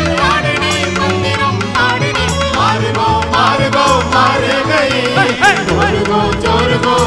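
Live band playing a peppy film song with a steady, repeating bass beat, while a man and a woman sing the duet into microphones.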